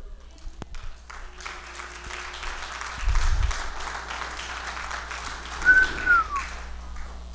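Congregation applauding, building up about a second in, with a short falling whistle from someone in the crowd near the end.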